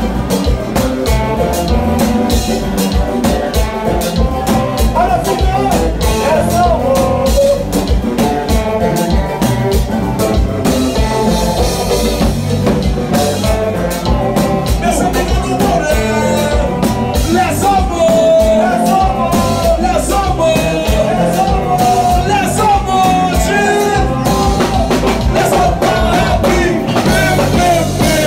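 Haitian konpa band music: a singer's voice over a steady drum beat and instruments.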